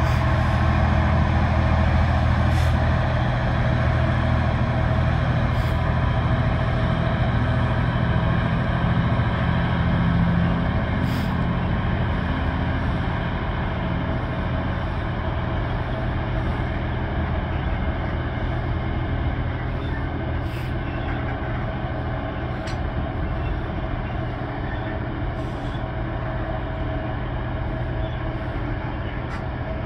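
Class 66 diesel locomotive's two-stroke V12 engine running steadily as it hauls a train of loaded hopper wagons away, its sound slowly fading. A few faint sharp clicks come now and then.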